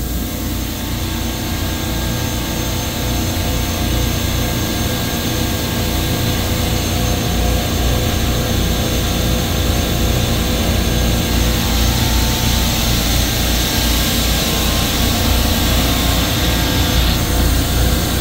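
Supermarket refrigeration compressor rack running in its machine room: a steady, loud mechanical drone with a low rumble and a few constant hums on top.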